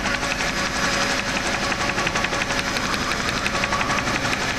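Steady helicopter engine and rotor noise heard from inside the cabin, with a fast, even pulsing from the blades.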